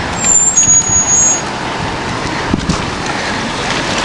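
Road traffic noise of cars and buses in a parking lot: a steady rumble and hiss, with a faint high-pitched squeal in the first second or so.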